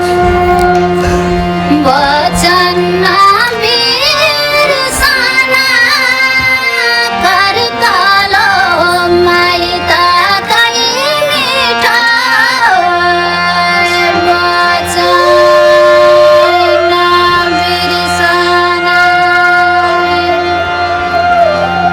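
Music of a Nepali song: a quick, ornamented melody line over a steady drone, giving way about halfway through to long held notes.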